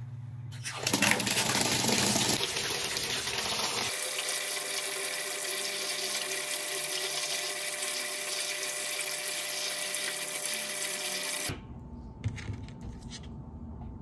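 Water running from a plastic wall tap into a plastic pail. It starts about a second in as the tap is turned on, changes in tone at about four seconds, and cuts off suddenly near the end.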